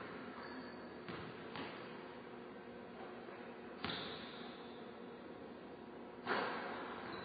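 Basketball thuds echoing in a gymnasium: two soft thuds about a second in, a sharp hit just before four seconds in, and the loudest hit about six seconds in as a shot strikes the hoop, ringing on in the hall.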